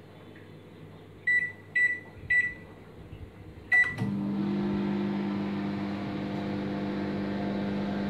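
LG convection microwave oven's keypad beeping three times as the cooking time is entered, then a fourth beep as it is started, after which the oven runs in microwave mode with a steady hum.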